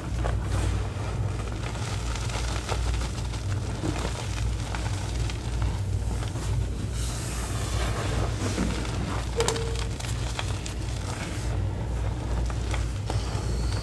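A hand pressing and squeezing into a heap of crushed gym chalk and cornstarch powder, giving a continuous soft crunching crackle with small clicks, over a steady low hum.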